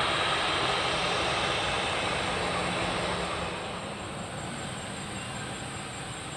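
Jet noise from a departing Boeing 737-300's CFM56-3 turbofan engines, a steady rumble and hiss that fades, with the higher part dying away after about three and a half seconds as the aircraft moves off.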